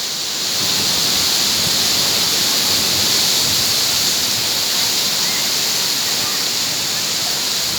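Strong wind rushing through coconut palm fronds: a steady, loud hiss of rustling leaves without a break.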